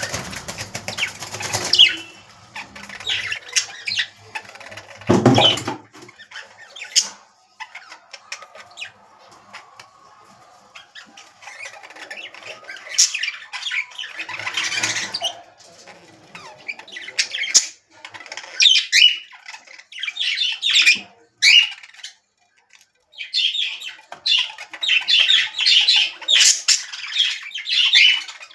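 Small pet parrots (budgerigars, lovebirds and a cockatiel) chattering and squawking in quick short calls, sparse at first and nearly continuous in the last third. A loud thump about five seconds in.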